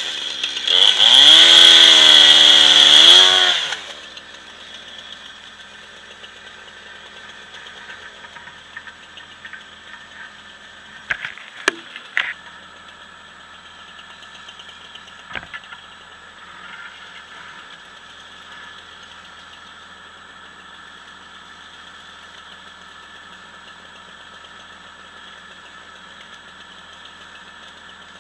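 A chainsaw running hard through a cut for about three seconds, its pitch wavering under load. Then the snow groomer's engine idles steadily, with a few sharp knocks or snaps partway through.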